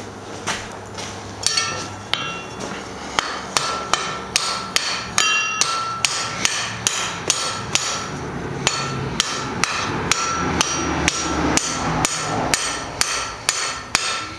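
Hand hammer striking a red-hot steel bar on an anvil in a steady rhythm of about two blows a second, each blow followed by a short metallic ring.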